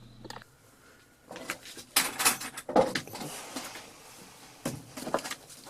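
Tools and objects being handled on a work surface: a scattering of short knocks and clicks with light rustling, the busiest stretch about two seconds in and again near the end.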